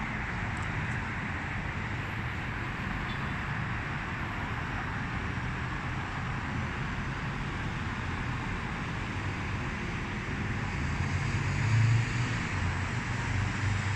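Steady hum of road traffic heard from high above, with a louder low rumble swelling near the end.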